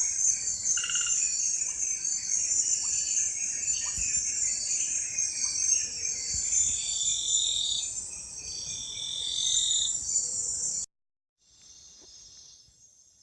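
Dense chorus of insects: steady, high-pitched buzzing and trilling, with shorter trills repeating beneath it. It cuts off abruptly near the end, and a fainter chorus comes back after a moment of near silence.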